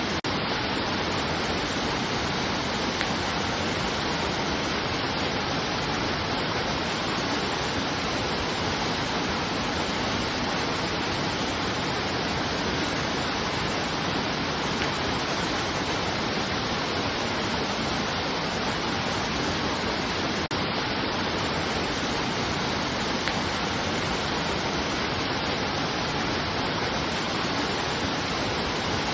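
Steady rushing of running water, an even, unbroken wash of noise with no change in level.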